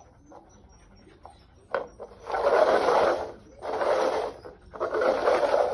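Plastic cups being shuffled across a tile floor: a few light knocks as cups are set down, then three scraping slides of about a second each.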